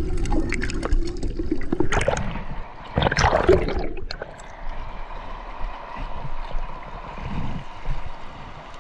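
Underwater sound of disturbed water and bubbles: clicks and knocks through the first few seconds, a loud rush of water about three seconds in, then a steady underwater hiss.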